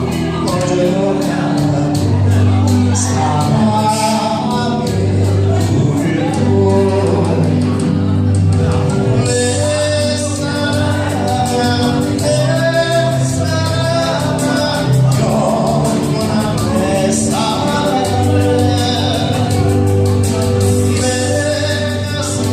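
Music: a song sung over instrumental accompaniment, with steady bass notes and an even, ticking beat.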